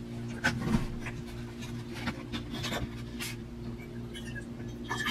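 Rustling and a series of small clicks from hands handling things, then, from about four seconds in, cold water pouring from a plastic bottle into an open insulated tumbler, giving a thin ringing tone. A steady low hum runs underneath.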